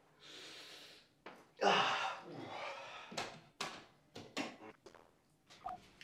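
A man breathes out loudly while stretching, with a breathy, falling vocal sound about a second and a half in. A string of short sharp knocks and clicks follows as he moves about near the camera.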